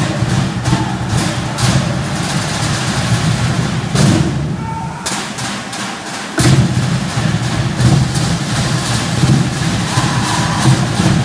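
Live drumming: fast, dense drum beats with a heavy low end. The drumming thins out for about two seconds near the middle, then comes back suddenly at full strength.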